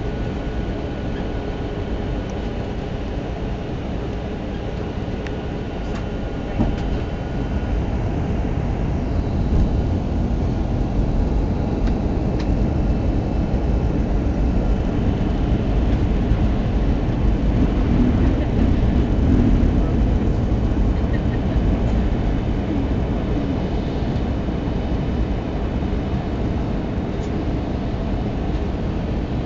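Airliner cabin noise on descent: a steady low rumble of jet engines and airflow with a faint high whine, swelling a little through the middle. A single small knock about seven seconds in.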